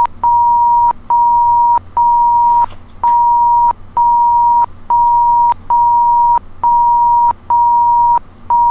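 Censor bleep: one steady mid-pitched beep tone repeated in a long unbroken string of about eleven beeps, each a little under a second long with short gaps, laid over speech to mask the spoken words.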